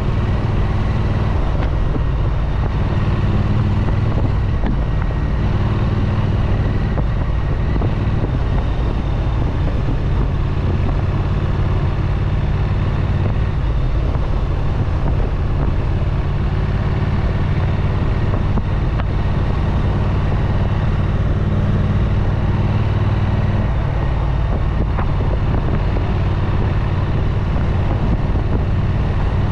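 Triumph Street Twin motorcycle engine, a parallel twin, running steadily through its exhaust, with its note shifting slightly a few times.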